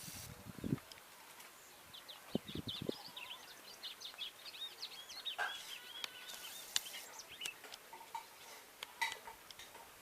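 Seedeater (Sporophila) twittering song: a rapid run of short, high chirping notes starting about two seconds in and ending about seven seconds in. A few short knocks and clicks are scattered through it.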